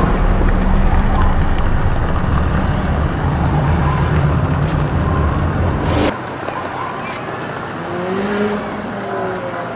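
Twin-turbo V8 engines of several McLaren supercars running as they roll slowly in convoy, a steady deep rumble. About six seconds in it drops suddenly to a quieter engine sound whose pitch rises and falls.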